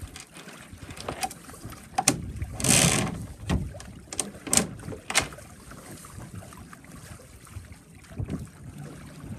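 Water slapping against a boat's hull on a choppy lake, with several sharp slaps and a louder splash about three seconds in, over wind rumbling on the microphone.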